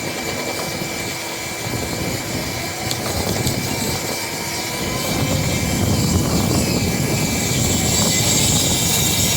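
A motor-driven machine running steadily, getting a little louder about five seconds in.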